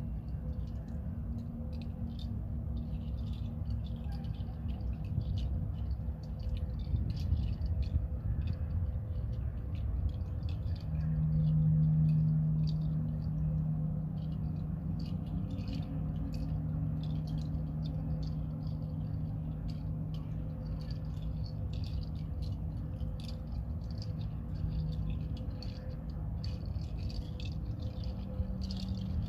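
A hand rattle shaken softly and continuously, a dense patter of small grains, over a low steady drone that swells and grows louder about a third of the way in.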